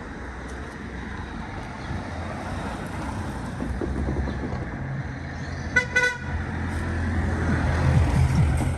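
A road vehicle's engine running with a low rumble that grows louder, and two quick horn toots about six seconds in.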